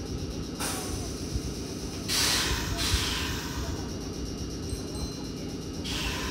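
Stationary Meitetsu electric train releasing compressed air in short hisses: a brief one about half a second in, a louder one lasting about a second around two seconds in, and another near the end, over the steady low rumble of its idling equipment.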